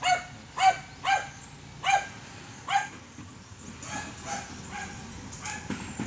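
A dog barking: five sharp barks about half a second to a second apart in the first three seconds, then fainter barks.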